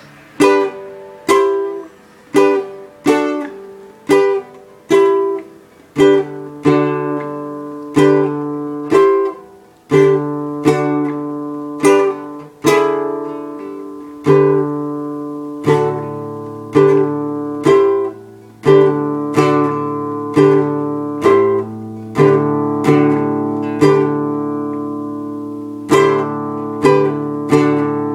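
Acoustic guitar strumming chords, a strike about every second, each chord ringing out; deeper bass notes join and hold about halfway through.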